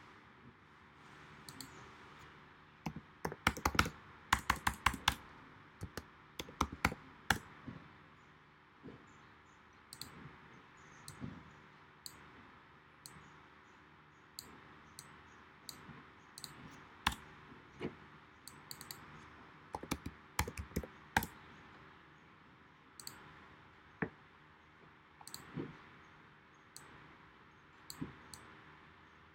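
Computer keyboard typing, a quick run of keystrokes about three to five seconds in, followed by scattered single key and mouse clicks.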